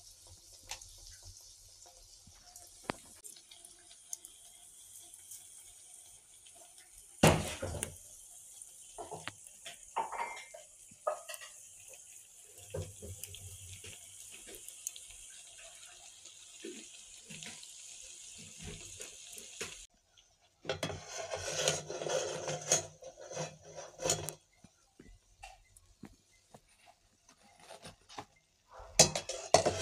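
Flour vadas deep-frying in a metal kadai: a steady sizzle of the oil, with a loud knock about a quarter of the way in and a few lighter clicks. After a short break, metal scraping and clatter from a slotted spoon working the pan as the fried vadas are lifted out.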